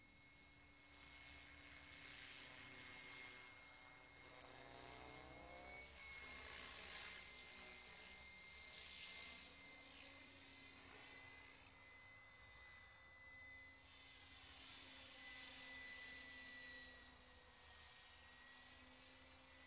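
Align T-Rex 600 RC helicopter in flight: a thin, high-pitched whine from its motor and rotors that shifts slightly in pitch. It grows louder toward the middle and fades again near the end as the helicopter moves about the sky.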